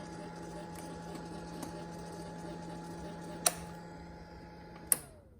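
Suzuki GSX-R motorcycle running with a steady hum and faint, irregular clicking, which the owner places around the throttle position sensors. Two sharp loud clicks follow, about a second and a half apart; at the second, the running hum stops and a tone winds down.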